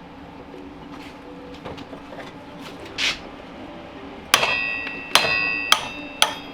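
Hammer striking metal four times, each blow sharp and followed by a metallic ring, to knock loose a stuck saw blade arbor nut.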